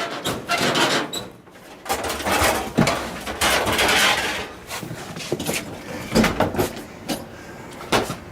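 Irregular knocks, clatters and scraping from a household appliance being pulled apart and banged on, with no steady machine running.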